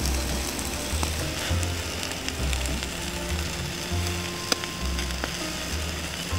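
Steady sizzling hiss with occasional sharp crackles from a bed of charcoal embers roasting fish hung above it. Background music with a deep bass line plays over it.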